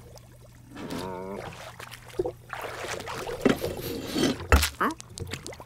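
Cartoon sound effects of water splashing and sloshing in a goldfish tank, after a short wavering, gurgling sound about a second in. A single sharp slap comes about four and a half seconds in.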